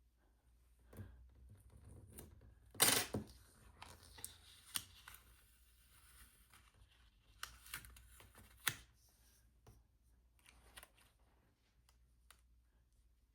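A paper sticker being peeled up off a planner page, a short rip about three seconds in, followed by scattered light taps and paper handling as it is repositioned and pressed down.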